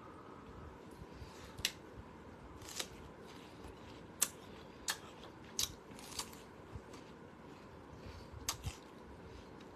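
Crisp crunching as a peeled piece of fruit is bitten and chewed close to the microphone: about a dozen sharp, irregular crunches.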